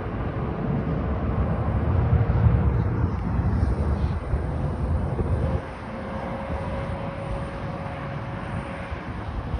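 Small plane coming in to land, its engine drone holding a faint steady tone that slowly rises, under a dense low rumble of wind on the microphone. The sound is loudest in the first half and drops off sharply a little past halfway.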